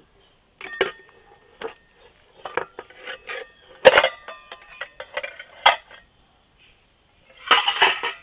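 Iron tongs knocking and scraping on the stainless-steel lid of a tiffin box as it is gripped and lifted off: a string of separate metal clinks, the loudest about four seconds in, then a short burst of clatter near the end.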